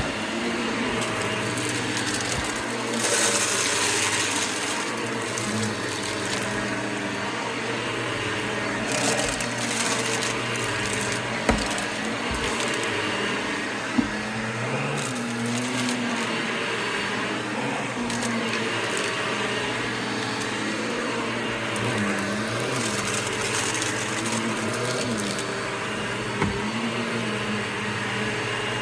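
Vacuum cleaner running steadily over carpet, crackling as it sucks up crunchy debris. The hiss swells briefly a few seconds in, and a few sharp clicks of grit hitting the inside come around the middle and near the end.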